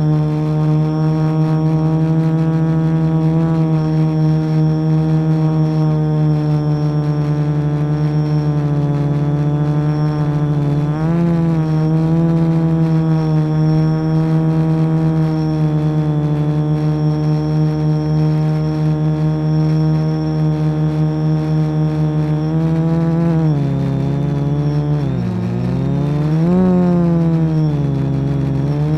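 Quadcopter's electric motors and propellers buzzing steadily, heard through the onboard camera. The pitch wavers about eleven seconds in, then near the end dips sharply and swoops back up as the throttle changes.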